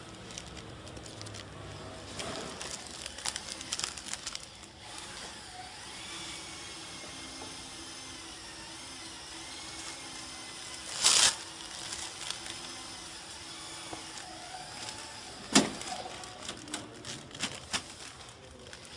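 Plastic packaging film being handled and fed into a flow wrap machine: crinkling and rustling, with a brief loud rush of noise about eleven seconds in and a single sharp knock a few seconds later, over a low steady hum.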